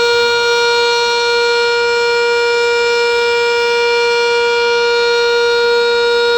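Sentry 10V outdoor warning siren sounding its steady Alert signal, one loud held tone that neither rises nor falls.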